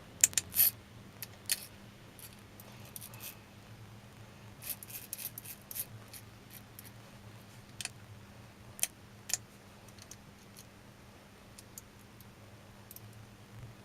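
Scattered small metallic clicks and clinks as parts of an old breast drill and its gearbox are handled during disassembly, over a low steady hum.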